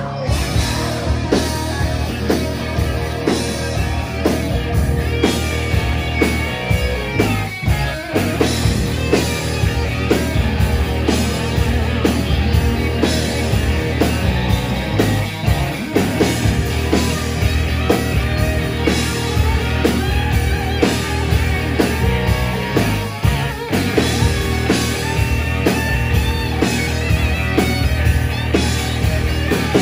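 A hard rock band playing live and loud: electric guitars, bass and drums through the club PA, heard from the crowd.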